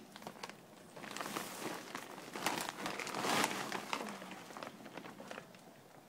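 Plastic potato grow bag crinkling and rustling as it is gripped and pulled up off a block of soil. The rustling is loudest around the middle, then dies down.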